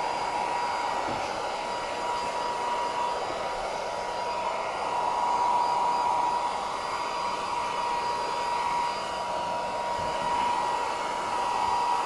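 Electric heat gun running on its low setting: a steady blowing hiss with a steady whine, heating heat-shrink tubing over a spliced power cord.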